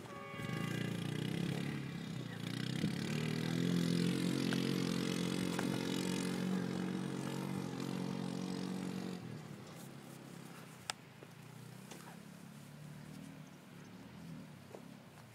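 Massimo MSU-400 400cc UTV engine running as it drives laps, climbing in pitch a few seconds in and holding steady. About nine seconds in it drops off sharply and stays faint.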